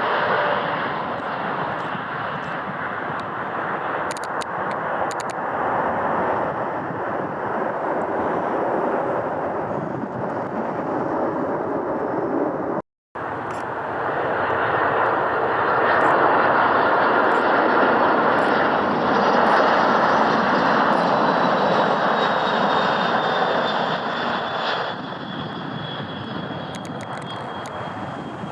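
Jet airliner engines running: a steady loud rush of engine noise that cuts out briefly about 13 seconds in. After the gap a high turbine whine slowly falls in pitch over the engine noise, and the sound steps down near the end.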